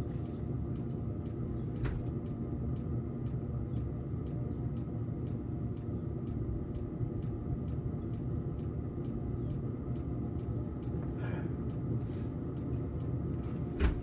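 Diesel air heater running: a steady low combustion and fan rumble, with a faint regular ticking about three times a second, typical of its fuel dosing pump. A single sharp knock comes near the end.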